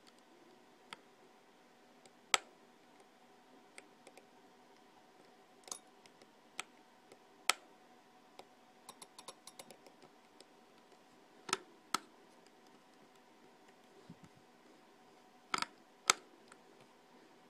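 Scattered sharp metallic clicks and taps as a screwdriver tip and fingers work at the spindle and head arm of an opened 2.5-inch laptop hard drive, over a faint steady hum. The drive is being checked for a spindle that won't turn, which he judges to be a stuck, bad bearing.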